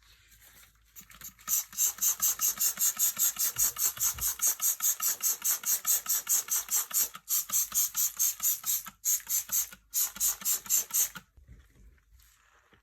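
Fast back-and-forth scrubbing through floor-cleaner foam, about five strokes a second, with two brief breaks before it stops.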